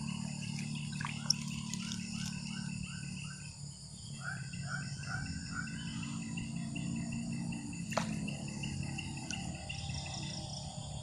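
Insects chirping in steady pulsed trains, with two runs of short, repeated calls about four a second from some other small animal, and a single sharp click about eight seconds in.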